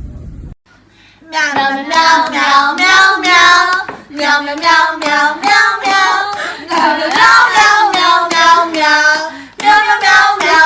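A high voice singing a wavering melody in phrases, with short breaks between them.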